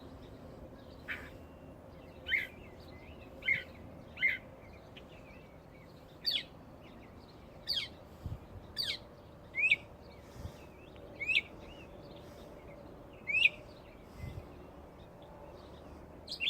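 A single songbird calling in a varied series of short, sharp notes about once a second, some quick chirps and some quick downward-sweeping notes, over a faint steady hum.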